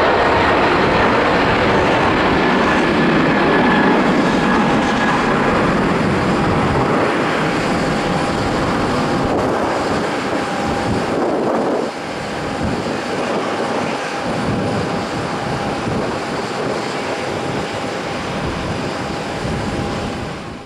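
Boeing 777-200ER's twin jet engines at takeoff thrust as the airliner lifts off and climbs away: a loud, steady rush of jet noise with a thin whine that sinks slightly in pitch. The level drops suddenly about twelve seconds in and fades out at the very end.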